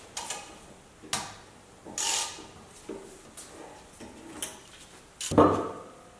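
Socket ratchet and extension turning the bolts that hold a rusty Porsche 911 front brake disc to its hub, giving a string of separate metal clicks and clinks with a short scrape about two seconds in. About five seconds in comes a loud metal clunk, the loudest sound, as the disc comes off the hub.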